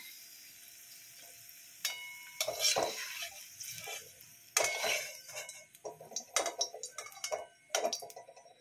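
A perforated steel skimmer scrapes and clinks against a steel kadhai as fried potatoes are scooped out of the frying oil. The scrapes and clinks come in a series of short strokes, starting about two seconds in.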